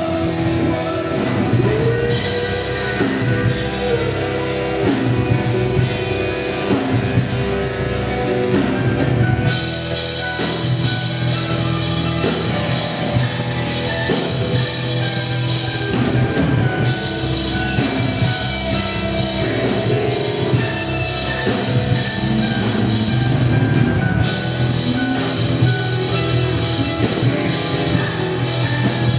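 Live rock band playing loudly, with drum kit and electric guitar.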